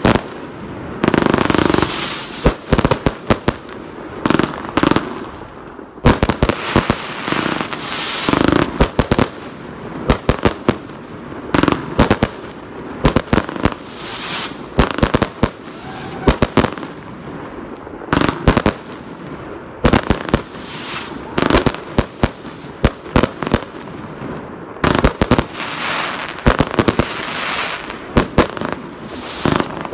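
Aerial fireworks bursting in rapid succession: many sharp reports arriving in quick volleys, one after another.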